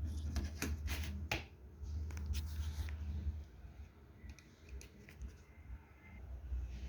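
Sharp plastic clicks and scraping as a pry tool works a Samsung J7 Pro's case clips apart. Several quick clicks come in the first second and a half, then a scrape, then fainter ticks.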